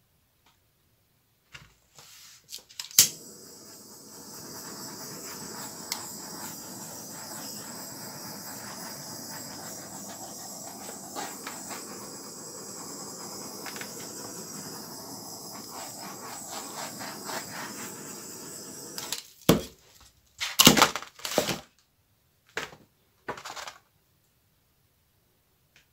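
Handheld butane blowtorch clicked alight, then running with a steady hiss for about sixteen seconds before it is shut off. Several sharp clicks and knocks follow near the end.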